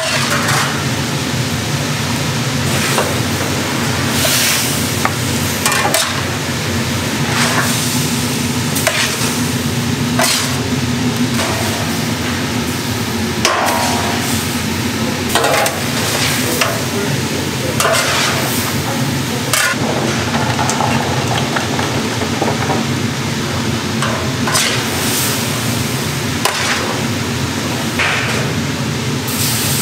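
Commercial kitchen noise: a steady machine hum, with frequent irregular scrapes and knocks of utensils on pans and trays, as in stirring food in bulk.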